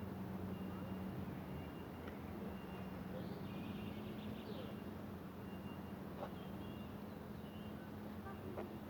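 Outdoor park ambience: birds chirping briefly over a steady low hum.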